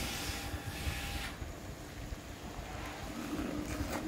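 Pot of chicken soup bubbling at a rolling boil, with a ladle stirring in it; a louder hiss in the first second or so, over a low rumble and a faint steady hum.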